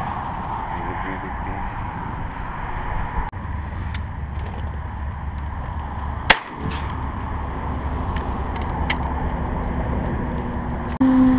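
A single shotgun shot about six seconds in, a sharp crack over a steady background rumble. Near the end a short low hum starts abruptly.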